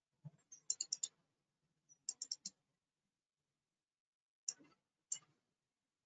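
Faint computer keyboard typing: two short runs of quick keystrokes in the first half, then two single keystrokes a little over four and five seconds in.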